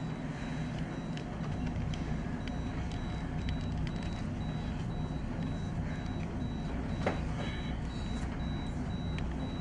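Steady low mechanical hum with a faint high-pitched beep repeating about twice a second, and a single sharp click about seven seconds in.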